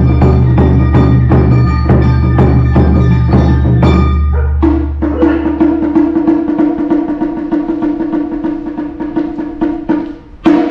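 Awa Odori dance music: drums and percussion in a quick, steady beat. About halfway in, a held note with fast, light strikes takes over, and a loud single hit comes near the end.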